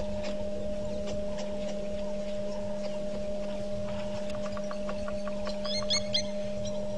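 Steady electrical hum from the microphone feed, with faint scattered clicks. About four and a half seconds in comes a quick run of ticks, then near six seconds a short burst of high bird chirps, the loudest sound.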